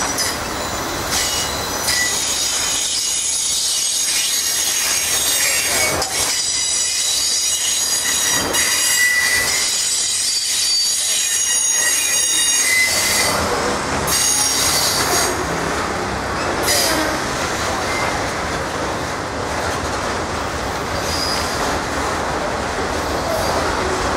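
Freight train of enclosed autorack cars rolling past, its wheels squealing in several high steady tones for roughly the first half. After that a louder, even rolling noise of the wheels on the rails takes over.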